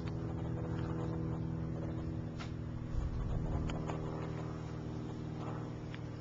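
A steady low mechanical hum, as of a motor running nearby, with a few faint clicks and a brief low thump about three seconds in.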